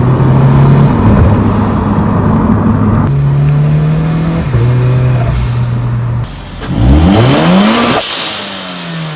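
Turbocharged Scion FR-S flat-four engine with a Speed By Design SBD500X turbo kit, holding steady revs, then revving up sharply about seven seconds in. The revs fall away with a burst of hiss as the throttle closes.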